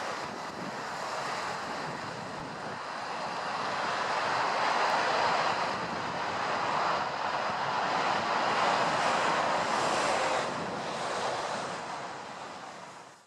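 Jet noise from an Airbus A320-214's CFM56 turbofan engines during the landing rollout: a steady rush that swells and eases a few times, then fades away near the end.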